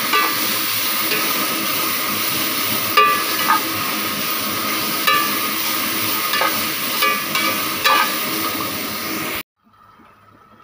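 Sliced cabbage, capsicum and carrot sizzling as they are stir-fried without oil in a metal pot, with a metal spatula scraping and clinking against the pot about once a second, each clink ringing briefly. The sound cuts off abruptly near the end.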